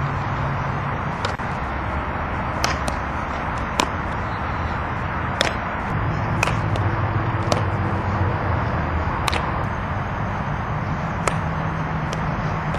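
About ten sharp knocks scattered irregularly over a steady low background rumble: softballs struck and caught during infield ground-ball drills.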